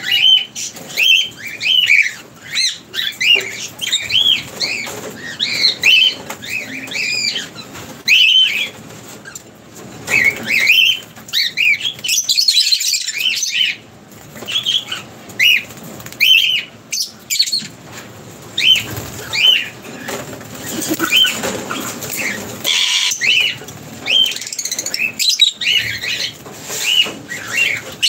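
A group of lovebirds giving repeated short, high chirps, about one or two a second, with bursts of wing-flapping as birds fly about the cage.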